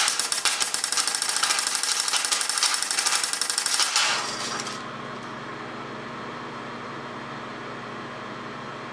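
A .177 BB air cannon firing a rapid full-auto burst, its 24 V solenoid valve opening and closing in quick, even shots that stop about four seconds in. A steady hum follows.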